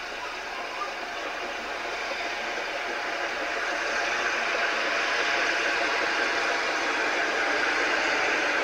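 Double-headed narrow-gauge steam train, a George England 0-4-0STT and a Double Fairlie 0-4-4-0T, approaching with a mixed train: a steady noise of the working engines and train growing gradually louder.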